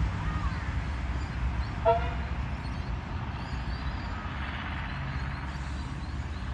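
Low, steady engine rumble, with one short toot about two seconds in.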